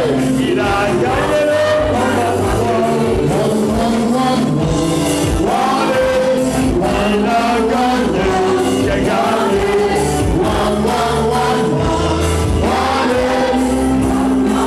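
Live gospel worship music: a congregation singing together over a band with bass and a steady drum beat.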